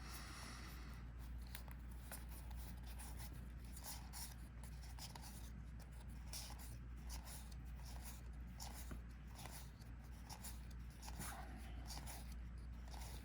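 Paper trading cards being slid and flipped one after another, a soft papery rub repeating about once or twice a second, over a low steady hum.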